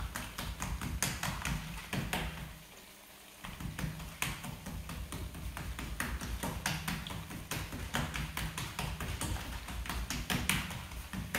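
Hands patting and pressing a ball of corn-flour dough flat on a plastic sheet: quick, irregular taps and slaps, with a short pause about two and a half seconds in.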